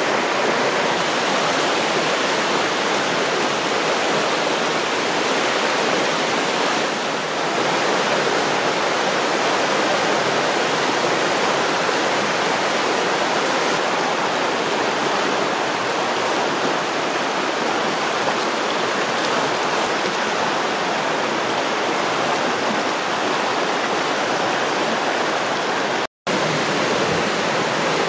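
Rain-swollen creek in flood, its fast water rushing over rocks in a loud, steady roar. The sound cuts out for an instant near the end.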